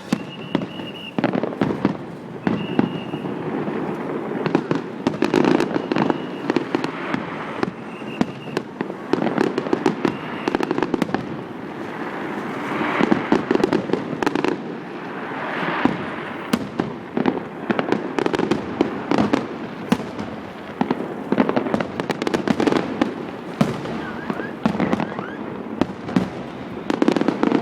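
Large aerial fireworks display: a continuous barrage of shell bursts and crackling, many bangs in quick succession with no letup.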